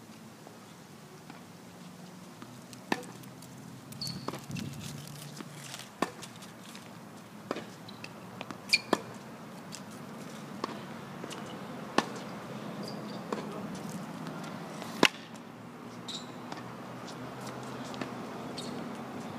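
Tennis balls being struck by rackets and bouncing on a hard court during a rally: sharp single pops every second or two, over a faint steady low hum.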